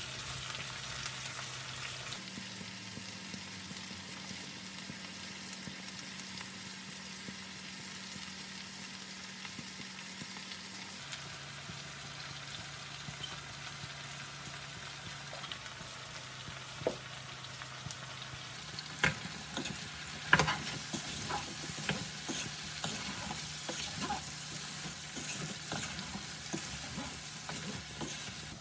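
Vegetables frying in oil in a pan with a steady sizzle. In the second half a spatula clinks and scrapes against the pan as they are stirred.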